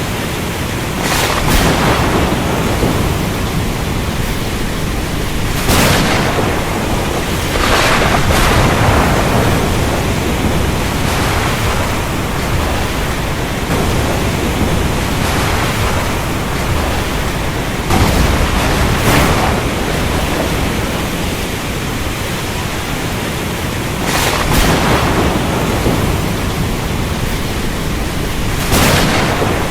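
Steady heavy rain with sharp thunder cracks breaking through every few seconds, several coming in quick pairs, each fading out over about a second.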